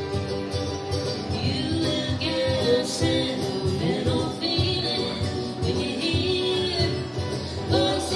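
A live acoustic band playing a Christmas song: strummed acoustic guitar and fiddle, with a woman singing.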